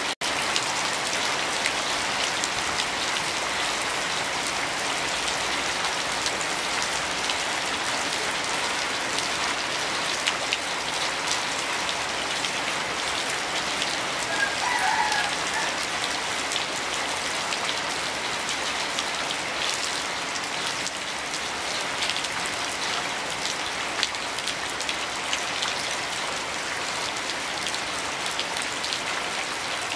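Heavy rain falling steadily, with many separate drop impacts heard through the downpour.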